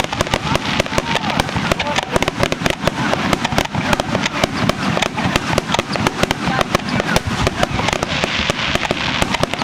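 Fireworks finale barrage: a dense, unbroken run of rapid bangs and crackles, many every second.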